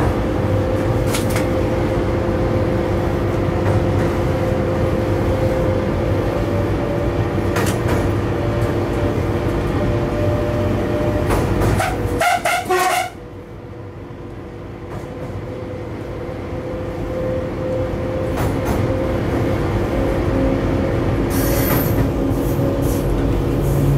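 Cab noise of a Siemens EuroSprinter class 120 electric locomotive running with a heavy freight train over a steel truss bridge: a steady rumble with a constant motor whine. About twelve seconds in a short pulsing horn sounds, then the noise drops sharply and slowly builds again.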